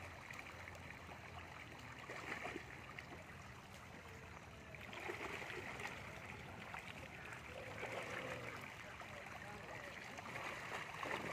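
A dense crowd of catfish thrashing in shallow water: a steady wet churning made up of many small splashes and gurgles.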